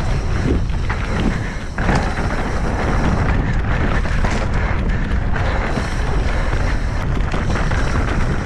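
Mountain bike riding fast down a rocky dirt trail: wind buffeting the bike-mounted microphone over tyres rolling on loose dirt and stones, with short knocks and clatter from the bike over the rocks.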